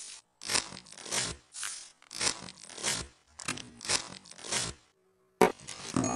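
Plastic wrapper of a Maggi instant-noodle packet crinkling as scissors cut across it, in a string of about eight short crunchy rustles, roughly two a second. After a brief pause comes a sharp knock, and music starts.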